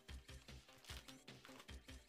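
Faint background music with a steady beat.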